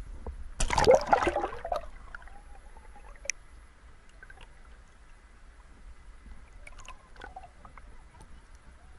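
Seawater splashing and gurgling over a camera as it plunges under the surface, a loud burst about half a second in that lasts about a second. It is followed by quieter, muffled underwater sound with a few faint clicks.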